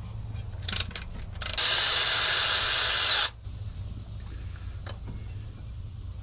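A power tool runs in one loud burst of about a second and a half, with a steady high whine, loosening a mounting bolt on a power steering pump; a few short clicks come just before it.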